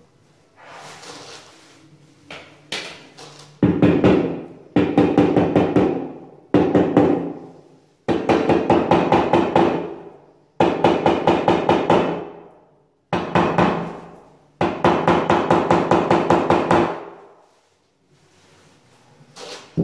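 Rubber mallet tapping a large porcelain floor tile to bed it into thick-bed self-levelling tile adhesive, in seven bursts of rapid taps with short pauses between. Softer hand and tile handling sounds come first.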